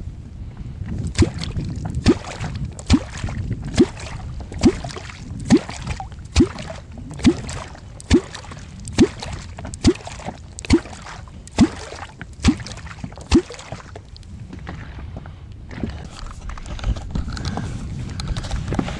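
Catfish kwok struck on the water surface in a steady rhythm, a short plunk that rises in pitch, repeated about fifteen times a little faster than once a second, to call catfish up to the bait. The strokes stop about two-thirds of the way through.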